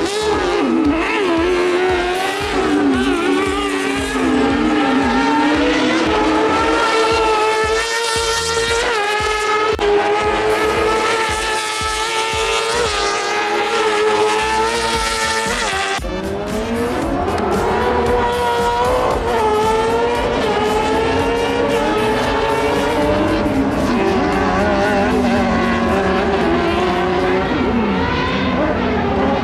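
Kart cross buggies' high-revving motorcycle engines racing, the pitch climbing and falling sharply again and again as the drivers rev and change gear. The sound changes abruptly about halfway through.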